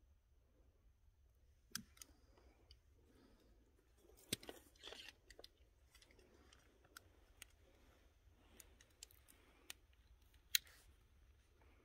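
Near silence broken by scattered faint clicks and crackles, irregularly spaced, the sharpest about ten and a half seconds in.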